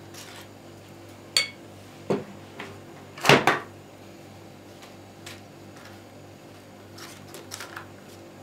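Kitchen utensils handled over a multicooker bowl: a light clink about a second in, a louder knock a little after three seconds, then a few soft taps as a silicone pastry brush smooths the dry flour layer near the end. A low steady hum runs underneath.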